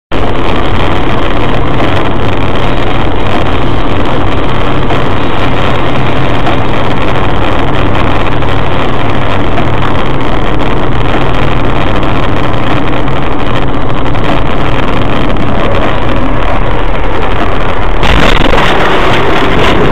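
Car engine and road noise, loud and steady, with a low hum under it. It turns harsher and noisier about eighteen seconds in.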